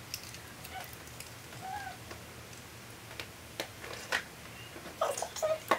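Faint, scattered clicks and handling noise from a barrel curling iron being worked through hair, with a small cluster of clicks near the end.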